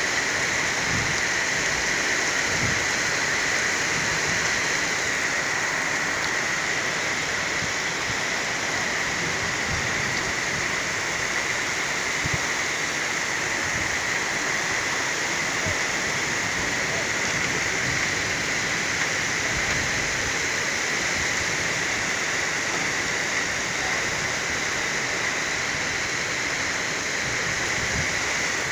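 Torrential rain pouring down in a steady, dense hiss, with scattered soft knocks of drops striking close by.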